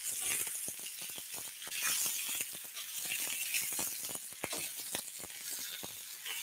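Chicken kebabs sizzling on a smoking-hot ridged griddle pan, with many light clicks and knocks as the metal skewers are lifted off the pan.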